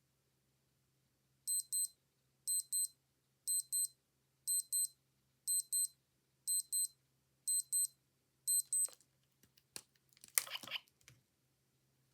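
Digital watch alarm beeping in high-pitched double beeps, one pair about every second, eight pairs in all, then stopping. A few clicks and a short rustle follow near the end.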